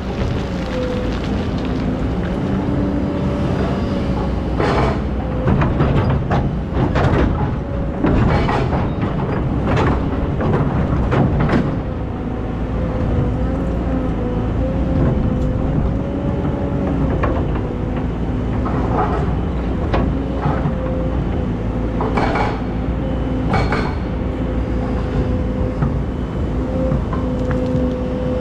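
Excavator's diesel engine running steadily with a whine that wavers slightly, and repeated knocks and clanks, most of them in the first half and a few more near the end.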